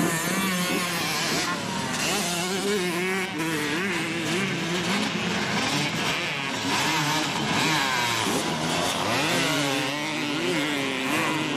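Motocross dirt bike engines racing round a dirt track, several at once, their pitch rising and falling as the riders open and close the throttle.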